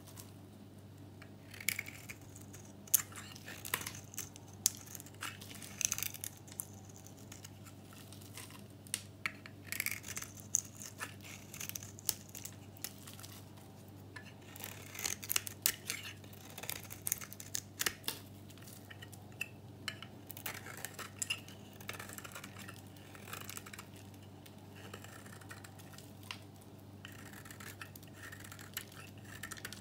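Snap-off utility knife blade shaving a dry, painted and varnished bar of soap: irregular crisp crackles and scrapes as brittle curls break away.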